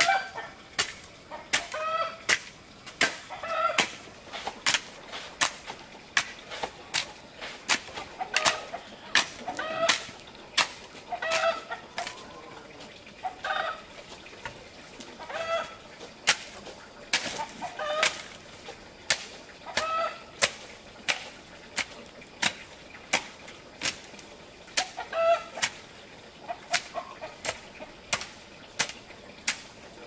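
Chickens clucking in short repeated calls, about one every second or two, over many sharp irregular clicks or taps.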